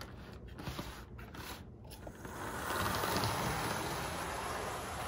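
HO-scale model diesel locomotive set on the rails with a few light clicks, then its motor and wheels running steadily along the track, getting louder about two and a half seconds in.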